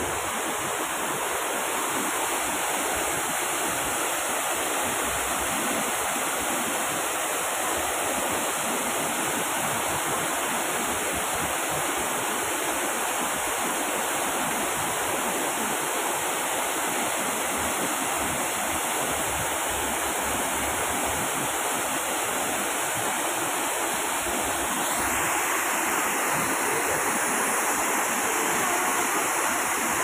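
Artificial waterfall cascading over man-made rock into a pond: a steady, continuous rush of falling and splashing water, a little louder near the end.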